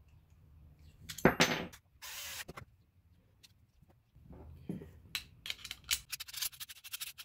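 An old, rusty steel mortise lock being handled and worked: a sharp metal click a little over a second in and a short rasp, then from about five seconds a fast run of ticks as a key is turned in the lock's mechanism, which still binds.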